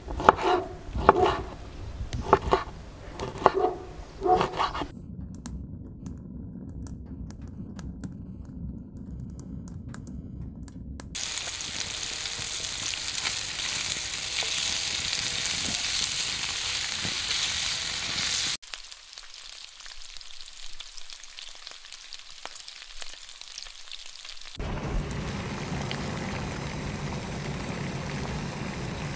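A knife chopping cured pork fat on a wooden board gives a run of sharp knocks over the first few seconds. Later, diced pork fat sizzles loudly and steadily in a frying pan for about seven seconds, then cuts off suddenly. Near the end a pot of soup simmers with a softer, steady hiss.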